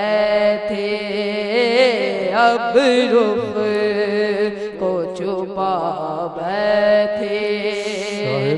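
A boy singing a naat, an Urdu devotional poem, drawing out long ornamented notes that waver and glide between pitches.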